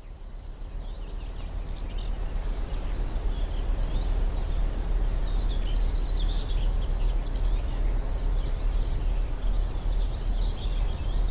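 Wind rumbling on the microphone over an open golf fairway, with birds chirping now and then. The sound fades in over the first few seconds.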